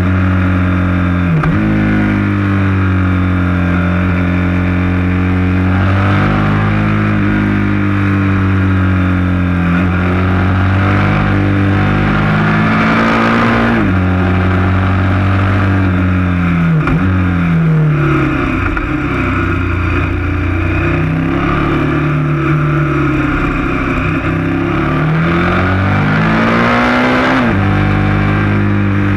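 KTM 1190 Adventure S's V-twin engine heard from on board the moving motorcycle, revs repeatedly climbing and falling with sudden drops in pitch several times, over steady wind noise.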